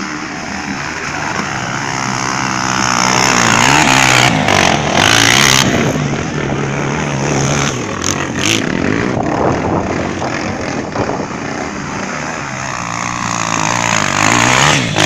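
Single-cylinder four-stroke dirt bike engine on a trail ride, its pitch rising and falling over and over as the throttle opens and closes through the gears, with heavy wind rushing over the microphone.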